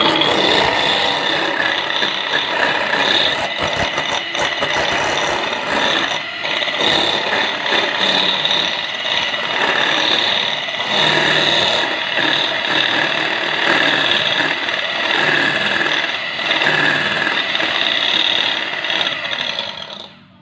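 Electric hand mixer running steadily, its two wire beaters whipping instant coffee, sugar and hot water into foam in a glass bowl. It starts at once and switches off near the end.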